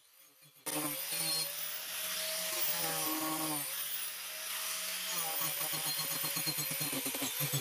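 DeWalt angle grinder with a carving disc cutting into a wooden bowl blank, starting abruptly under a second in. Its pitch sags and recovers as the disc bites, and in the last couple of seconds the cutting turns into a fast, even pulsing.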